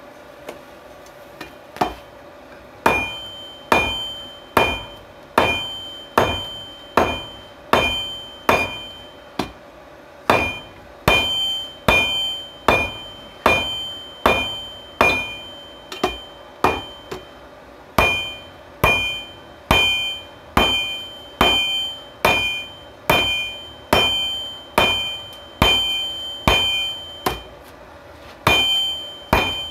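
Hand hammer blows on a steel anvil while forging a railroad spike, about one and a half blows a second with a few short pauses. Each blow rings with a clear high tone.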